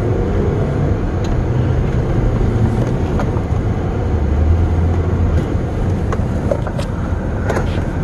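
Honda Odyssey minivan's engine running under throttle as the van drives through deep snow with its traction control switched off, heard from inside the cabin, with a steady rush of tyre and road noise under a low engine note that shifts slowly in pitch.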